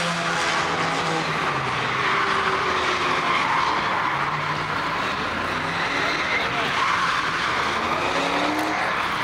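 Cars sliding: tires squealing steadily while engines rev, with one rev rising near the end.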